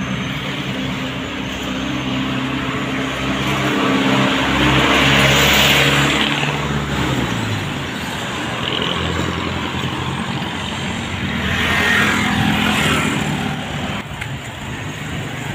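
Road traffic passing close by, heard from a moving bicycle: a steady low engine hum with road noise. One vehicle goes by loudly about five seconds in, and another around twelve seconds.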